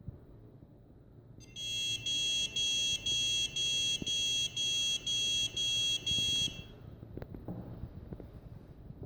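Huanan X79 motherboard's beeper sounding a run of about ten short, high beeps, two a second, which then stop, followed by a few faint clicks. The beeping is a POST error signal from a board that fails to start.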